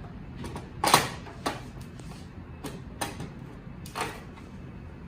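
Sharp mechanical clacks and knocks from handling a Sysform D-502 double-head paper drilling machine, about six of them at uneven intervals, the loudest about a second in.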